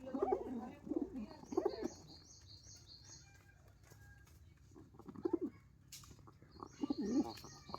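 Pigeons cooing in low, throaty phrases, repeated several times with a lull in the middle. A quick run of high chirping notes sounds twice, and there is a single sharp click about six seconds in.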